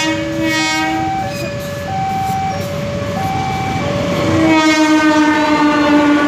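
Railway level-crossing alarm sounding an alternating two-note tone, switching about every two-thirds of a second. A diesel locomotive's horn sounds briefly at the start, then gives a long, louder blast from about four seconds in that drops slightly in pitch as the train reaches the crossing.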